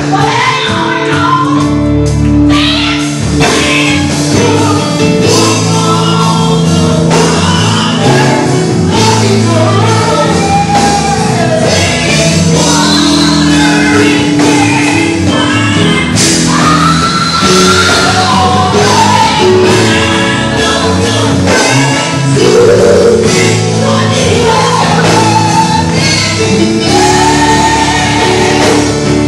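Live gospel song: a group of women singing with a lead singer on microphone, backed by a band with electric guitar, bass notes and drums.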